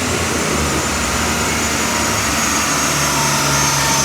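Car engine running hard on a chassis dyno during a power pull, its pitch climbing steadily as the revs rise.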